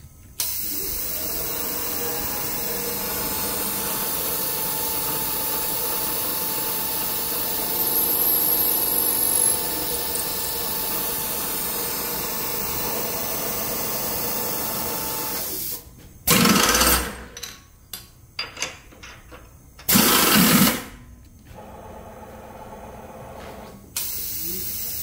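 Accupath AC-3KV CNC knee mill running a drilling cycle: the spindle runs steadily for about fifteen seconds, a little louder for a moment partway through. Near the end come two short, loud blasts about four seconds apart, with light clicks between them, and then the machine starts running steadily again.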